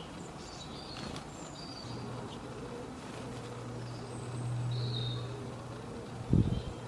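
Short high bird chirps over a low, steady insect buzz that starts about two seconds in and grows louder around the fifth second, as if the insect flies close to the microphone; a sharp thump near the end.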